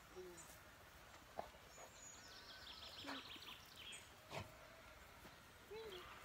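Near-quiet outdoor ambience with a small bird singing a falling run of notes about two seconds in, a few short high chirps, and a couple of soft knocks, the louder one about four seconds in.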